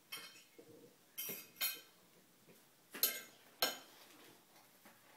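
Cutlery clinking against a dinner plate: about five sharp clinks spread over the few seconds, each ringing briefly.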